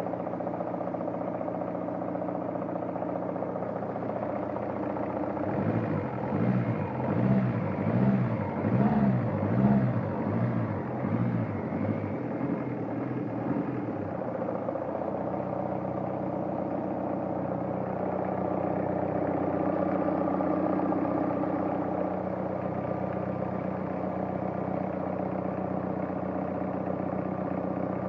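Toyota Vista's 2C-T four-cylinder turbodiesel running at idle, with a knock from somewhere up top that the owner cannot place. From about five seconds in, for roughly eight seconds, the engine note swells and fades about once a second and is louder.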